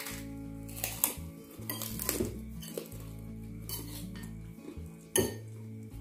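Metal spoons clinking and scraping against ceramic bowls while eating, a few sharp clinks with the loudest about five seconds in, over background music with steady low tones.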